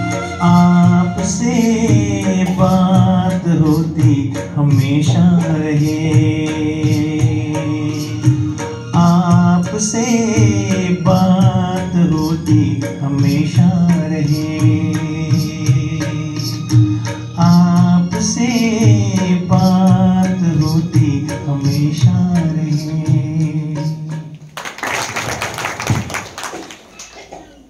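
A song with a singing voice over instrumental accompaniment and a steady beat. Near the end the song gives way to about two seconds of hand clapping, then fades.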